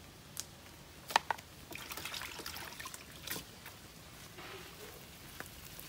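Lime leaves being picked off a small tree: a few sharp snaps of stems breaking and a faint crackly rustle of leaves in the hand.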